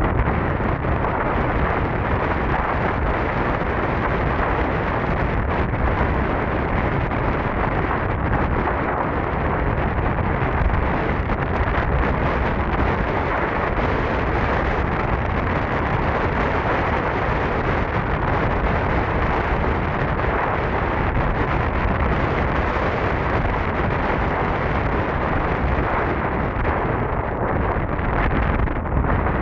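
Heavy wind noise on the microphone while riding an electric scooter at speed: a steady, loud rushing with no distinct motor tone.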